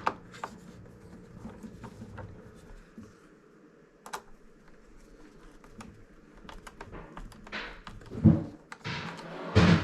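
Small plastic clicks and taps as a Roomba 675 side brush is handled and pressed onto its motor hub, with a few louder knocks and handling rustle near the end.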